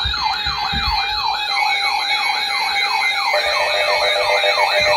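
Electronic yelp-style siren alert tone, sweeping rapidly about three times a second over steady higher tones, with a second warbling tone joining about three seconds in; an alert sounding ahead of a severe thunderstorm warning.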